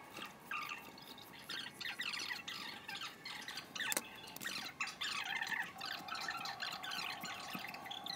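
Polystyrene foam squeaking in short, high, irregular squeals as a craft knife cuts and trims a small foam strip, with a sharp click about four seconds in.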